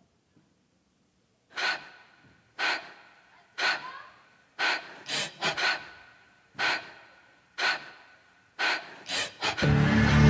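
About eleven sharp, echoing gasps for breath, roughly one a second with a few in quick succession near the middle and the end, as the recorded opening of the solo's soundtrack. Loud, sustained music comes in just before the end.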